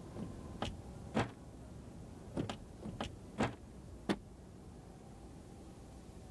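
Fists banging on a window pane: about eight sharp, irregular knocks over the first four seconds, then they stop.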